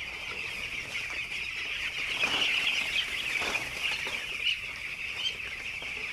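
A flock of young poultry-farm chicks peeping continuously, a dense high-pitched chorus that swells a little around the middle.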